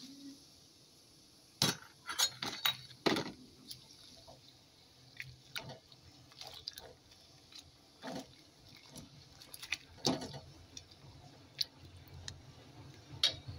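A ladle knocking and clinking irregularly against a stainless steel pot while vegetables are stirred into boiling soup, over a faint steady hiss of the bubbling broth.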